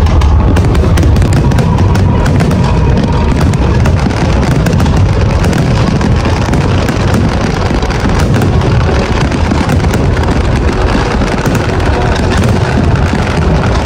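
Fireworks display going off continuously: dense, rapid bangs and crackles with no pause, over music and crowd voices.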